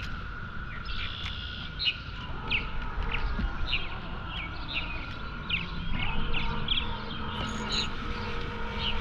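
A bird chirping over and over, short high falling chirps about two a second.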